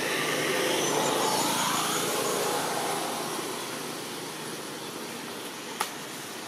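A passing engine, loudest in the first couple of seconds and then fading away, with a single sharp click near the end.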